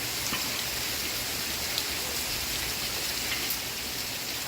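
Steady rain falling, a dense even hiss with a few faint ticks scattered through it.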